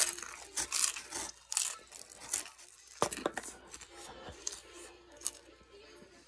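Close-up crunching of a hard nacho-cheese taco shell being bitten and chewed: a string of sharp, crisp crackles, densest in the first couple of seconds, with a few more later.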